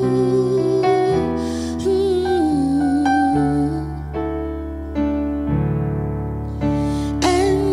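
Electric piano playing slow, sustained worship chords that change about once a second. A woman's voice holds wavering notes over it through the first half, then the keyboard plays on alone.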